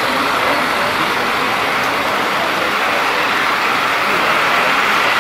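O gauge two-rail model trains running along the metal track, a steady rolling rumble of wheels on rails.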